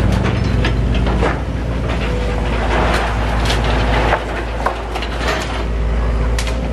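Excavator's diesel engine running steadily under load, with irregular knocks and clatter of breaking timber and tiles as the building is demolished.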